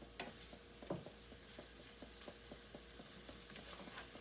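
Beef and broccoli frying in soy and sesame sauce in a skillet, sizzling faintly with many small pops. A few louder clicks come through, about a second in and again near the end.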